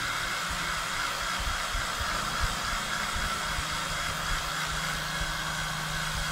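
Handheld hair dryer running steadily, blowing on freshly applied chalk paste to dry it. It is an even rushing hiss with a faint low hum underneath.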